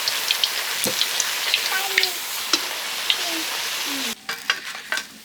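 Bread dough frying in hot oil: a steady sizzle with crackles and pops, which cuts off suddenly about four seconds in, leaving a few clicks.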